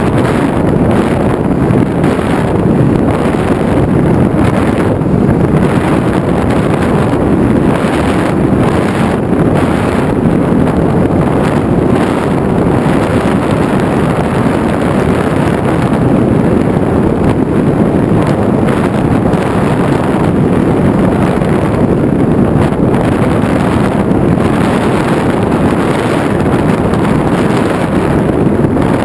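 Steady, loud wind rushing over the onboard microphone of an FPV model aircraft in flight.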